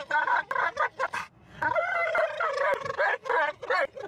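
Dog howling and yowling excitedly in long, wavering cries that bend up and down in pitch, with a short break about a second in.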